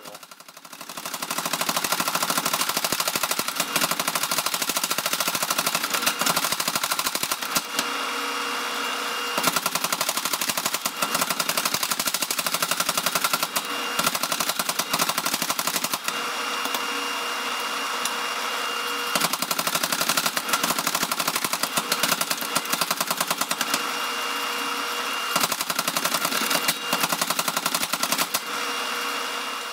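Power hammer pounding a red-hot steel bar in rapid, continuous blows while the tong reins are drawn out. The blows start about a second in.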